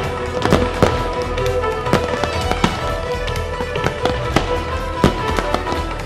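Aerial firework shells bursting in a run of irregular sharp bangs and crackles, over steady music.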